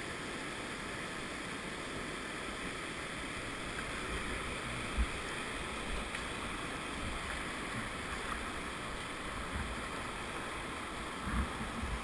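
Steady rush of river water around a kayak running down the river. A few low thumps cut through, the loudest about five seconds in and another near the end.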